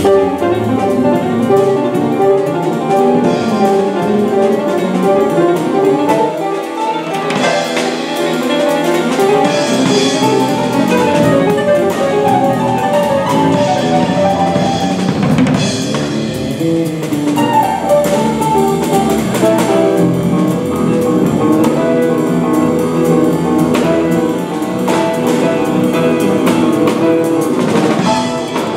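Live jazz: piano playing with a drum kit, with many quick notes and drum strikes throughout.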